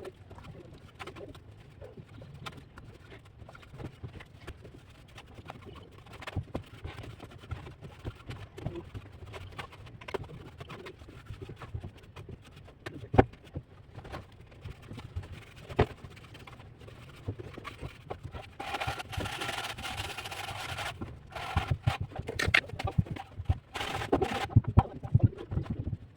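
Irregular taps, knocks and scrapes of hand tools working cement plaster on a brick wall, busier and louder in the last third, with a few sharp louder knocks. A pitched sound, a voice or call, lasts about two seconds about two-thirds of the way through.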